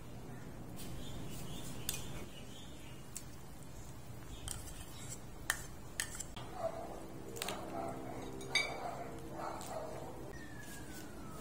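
Cooking utensils clinking against a pan of simmering ingredients, with about five separate clinks and some stirring noise.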